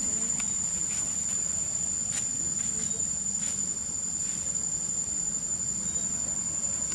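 Insects shrilling in one steady high-pitched tone, over a low hum and a few faint rustles.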